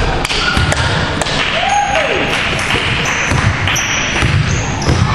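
Basketball game in a gym: the ball thudding and bouncing, a sneaker squeaking on the court floor about a second and a half in, and echoing chatter in the hall.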